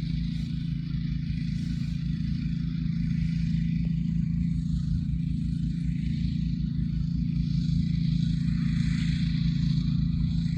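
Steady low engine hum of a motor vehicle running without a change in pitch, with a fluttering low rumble beneath and a hiss rising and falling above it.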